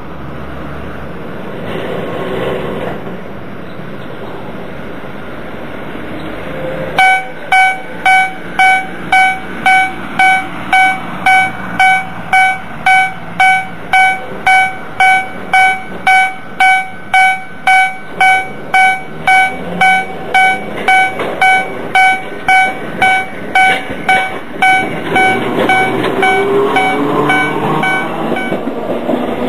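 Level-crossing warning bell ringing, a steady electronic ding repeating about one and a half times a second: it starts about seven seconds in and stops shortly before the end. A Manyo Line tram's running noise grows louder over the last few seconds as it approaches.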